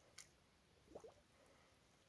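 Near silence: a faint sharp click, then a faint brief wet squelch about a second in.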